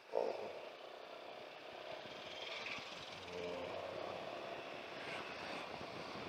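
A motorcycle being ridden through town traffic: a steady run of engine and road noise, heard from the rider's position.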